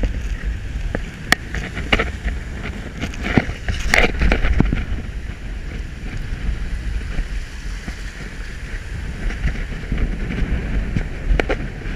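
Strong wind buffeting the microphone with a steady low rumble over the wash of rough surf in the shallows. A few sharp knocks and splashes come through as a hand works in the water.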